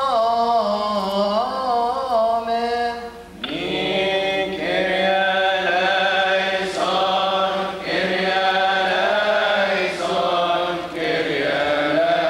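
Coptic Orthodox liturgical chant. One voice sings a winding melismatic line, then after a short break about three seconds in, a fuller group of voices takes up the chant.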